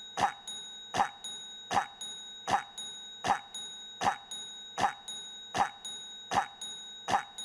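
A short cough, looped so that it repeats in exactly the same form at perfectly even spacing, about every three quarters of a second: ten coughs in a row.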